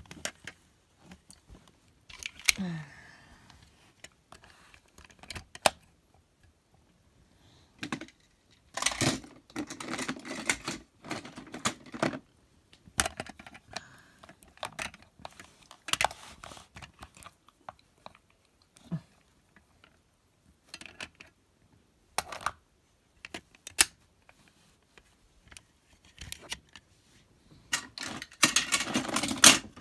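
Toy cars and a plastic playset being handled: scattered clicks and knocks, with longer bursts of rustling and scraping about a third of the way in and near the end.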